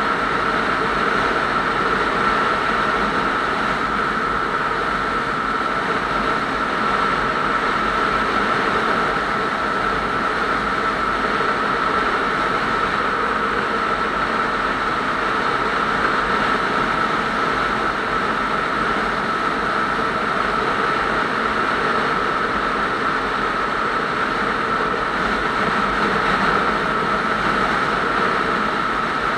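Steady running noise of a vehicle cruising at constant speed on a highway: engine drone mixed with wind and tyre noise, with a steady whine held at one pitch.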